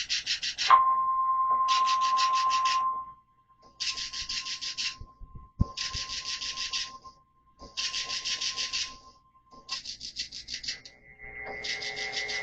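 A single steady alert tone near 1 kHz held for about nine seconds: the weather-radio warning alarm tone. It is broken across by harsh, static-like bursts about a second long, roughly every two seconds. Near the end, several steady tones of different pitches sound together.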